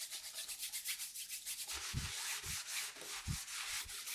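Paper towel and brush rubbing over an oil-toned stretched canvas. It starts as quick back-and-forth scrubbing at several strokes a second and becomes a steadier wiping rub about halfway through, with a few soft dull thumps of the canvas.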